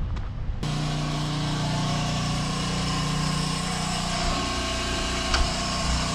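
Portable generator running at a steady speed, a constant engine hum with one short tick about five seconds in.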